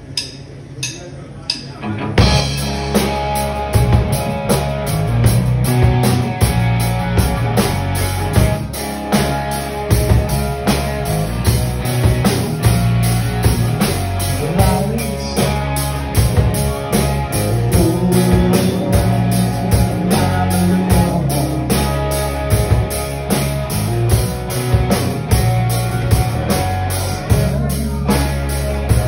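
Live rock band starting a song: a few sharp drumstick clicks about half a second apart, then drums, bass and electric guitar come in together about two seconds in and play on steadily.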